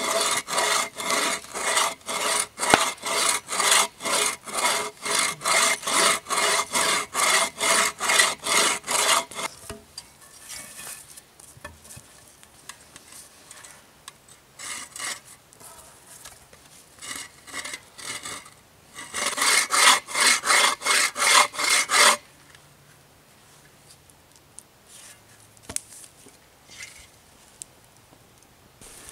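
Hand saw cutting through a small log in quick, even back-and-forth strokes, about two a second. The strokes go sparser and quieter about ten seconds in, then come a second loud, fast run and a sudden stop about two-thirds of the way through.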